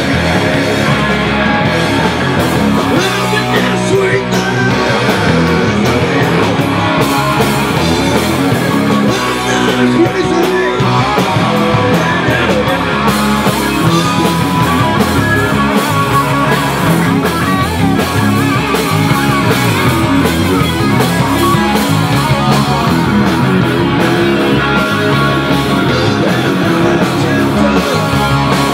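Rock band playing loud and steady: electric guitars including a Les Paul, bass guitar and a Pearl drum kit, with no break.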